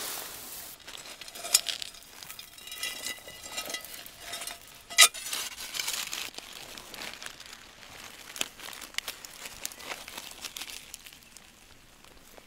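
A metal spatula scraping through gravel to lift out a buried, leaf-wrapped parcel: crunching stones, sharp clinks of metal on stone, and the crinkle of the wet leaf wrapping. The loudest clink comes about five seconds in.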